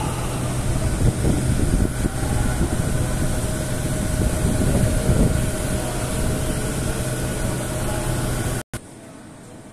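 Night city street ambience under a railway viaduct: a steady low hum over uneven traffic rumble. Near the end it cuts out abruptly and gives way to a much quieter ambience.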